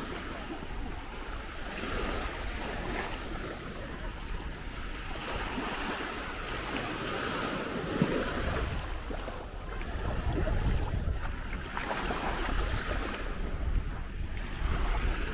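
Sea waves washing in on a sandy beach, swelling and fading every few seconds, with wind rumbling on the microphone.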